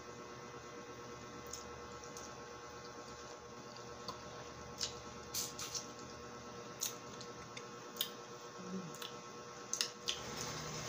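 Wet mouth sounds of sucking on a peeled lemon slice: soft, scattered squishy clicks and smacks, about a dozen over several seconds, above a faint steady hum.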